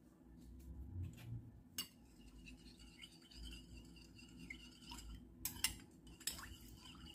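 Metal spoon stirring a little water in a cut-glass bowl, scraping and clinking against the glass, with a few sharper clinks, the loudest a little past five seconds in.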